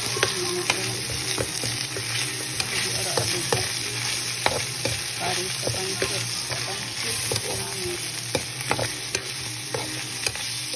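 Meat, garlic and onion sizzling in a nonstick wok while a metal spatula stirs them, its edge scraping and tapping the pan in irregular clicks over a steady frying hiss.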